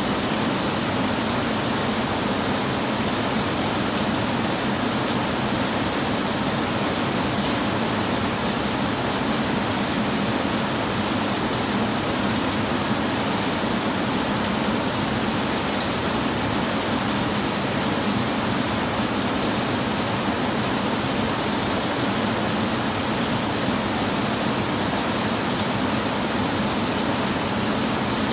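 Steady rain falling on a tin roof, an even hiss with no thunderclaps.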